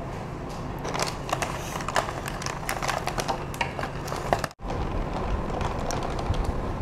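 Metal fork clicking and scraping against a ceramic bowl in quick, irregular taps while eggs or batter are stirred. The sound cuts out briefly just past halfway, then the tapping carries on.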